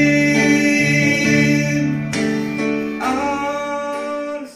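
A man singing long held notes into a microphone over a karaoke backing track with guitar, with new chords coming in about two and three seconds in. The music drops away sharply at the very end.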